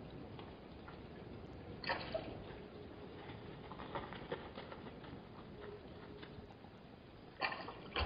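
Open-air wildlife-camera sound: a steady wind-and-hiss background with scattered small clicks and scuffs from gemsbok moving close to the microphone, and two short louder scrapes, about two seconds in and near the end.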